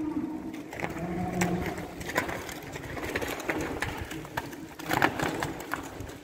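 Holstein heifers moving about a barn alley: scattered knocks and shuffling, with the loudest knocks about five seconds in.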